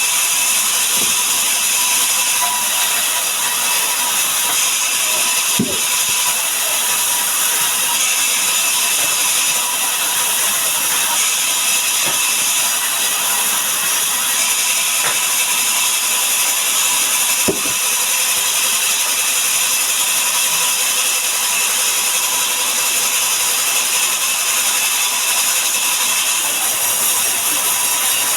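Sawmill saw cutting mahogany, a loud, steady high-pitched running noise with a couple of sharp knocks, one about a third of the way in and one past halfway.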